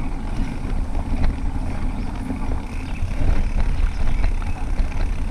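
Wind rumbling on the microphone of a camera riding on a moving bicycle, with the tyres rolling over a dirt track and scattered small ticks and rattles.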